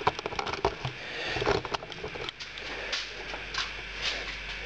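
Handling noise: scattered light clicks and rustling as a handheld camera is moved about, with no steady tone or rhythm.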